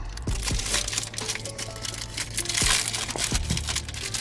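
Paper napkins and a small paper takeout bag crinkling as they are handled, with soft background music underneath.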